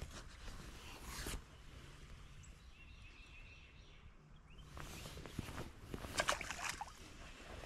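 Rustling of a jacket and gloves close to the microphone as an angler handles a white bass, with short bursts about a second in and a louder cluster of rustles a little past the middle.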